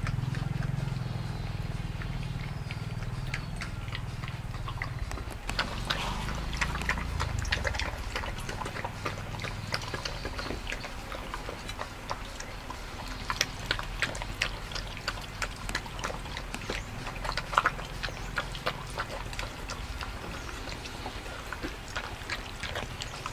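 A dog eating soup from a metal bowl: wet lapping, licking and chewing, with many small irregular clicks and smacks.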